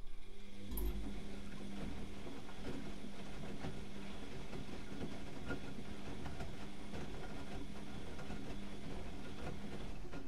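Bauknecht WAK 6950 washing machine's drum turning during an Easy-Care 60 °C wash: a steady motor hum with wet laundry tumbling, starting about a second in and stopping at the end.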